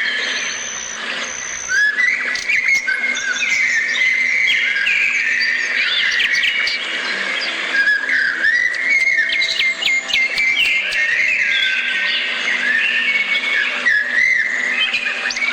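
Many birds singing and chirping together: a dense, continuous chorus of overlapping whistles, short chirps and trills.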